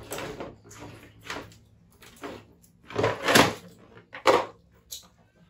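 Plastic stools knocking and scraping on a tiled floor, a string of short clatters with the loudest cluster about three seconds in.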